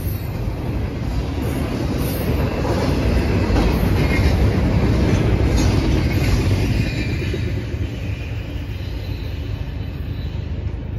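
Double-stack intermodal container freight train's wheels rumbling and clacking over the rails as the cars pass close by, loudest midway, then fading after about seven seconds as the last car goes by.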